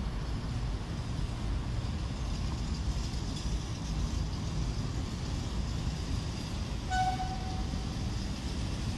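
Low, steady rumble of a slow freight train of Eaos open wagons rolling past on the rails. About seven seconds in, a train horn gives one short blast, under a second long.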